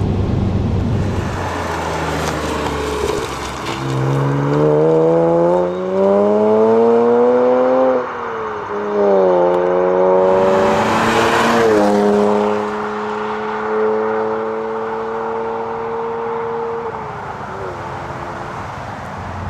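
BMW 335i's turbocharged straight-six through a stainless cat-back performance exhaust, accelerating hard: the pitch climbs, drops at a gear change about eight seconds in, climbs again, then holds steady before easing off near the end.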